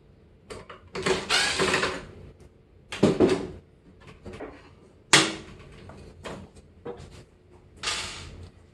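Clattering and knocking of the microwave's metal and plastic parts being handled and lifted loose, in four separate bursts, the sharpest knock about five seconds in.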